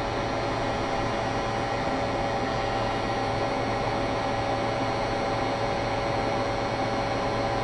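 Heat gun running steadily, its fan blowing hot air with a constant hum, while the solder paste on a surface-mount board reflows.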